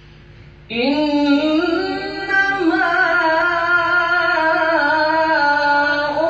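A man reciting the Quran in the melodic, drawn-out qiraat style, his voice coming in about a second in after a short pause with faint hiss, then holding long notes that waver slowly in pitch.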